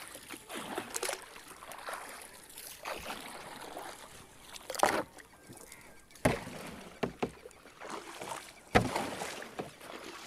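A long bamboo pole dipping and pushing in shallow water to punt a small boat, with irregular splashes and sloshing. A few sharp knocks stand out, the loudest about five and nine seconds in.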